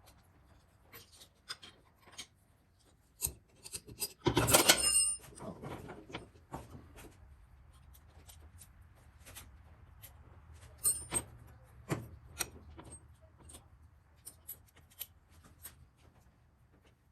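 Hand work on motorcycle handlebar parts: scattered clicks, taps and rubbing of tools and metal parts being handled. About four seconds in there is a louder scraping rattle lasting about a second.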